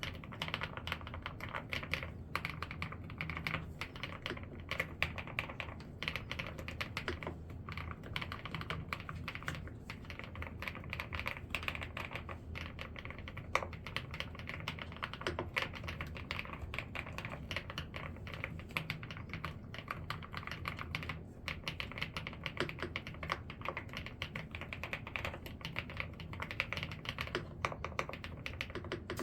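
Mechanical keyboard with round pebble-style keycaps being typed on quickly and steadily, a dense run of key clicks and clacks.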